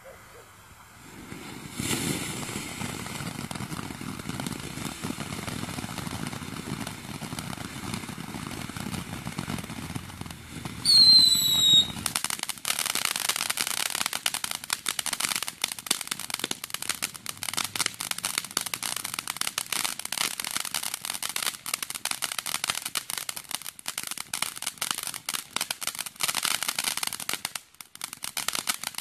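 Cannon Brand Heat Wave firework fountain burning. It gives a steady hissing spray for about ten seconds, then a brief high whistle falling in pitch, then dense crackling for the rest of the burn, which drops off for a moment near the end before picking up again.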